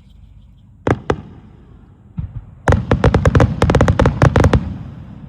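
Wide starmine fireworks display: two sharp bangs about a second in, another just after two seconds, then a rapid volley of more than a dozen bangs lasting about two seconds, trailing off into a low rumbling echo.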